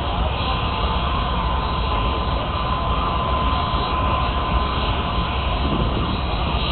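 Steam locomotive standing with a steady hiss and low rumble, and a thin steady tone running through it.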